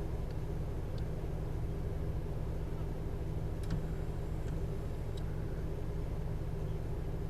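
Car running: a steady low rumble of road and engine noise, with a few faint clicks.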